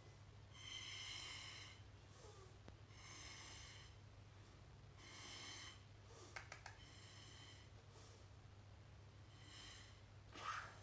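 A child blowing through a drinking straw to inflate a balloon: five breathy blows, each a hiss with a faint whistle of air through the straw. They come about every two seconds, with shorter breaths drawn in between. A few light clicks come about six seconds in, and a short knock just before the end.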